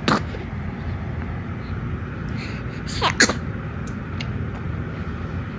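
Baby sneezing: one short sneeze at the start and two more in quick succession about three seconds in, each dropping in pitch, over a steady low background hum.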